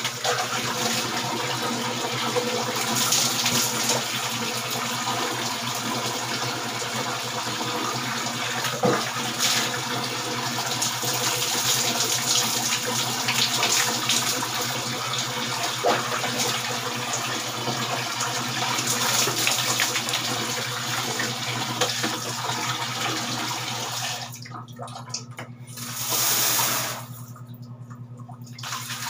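Water running steadily and splashing as a man bathes, breaking off twice briefly near the end.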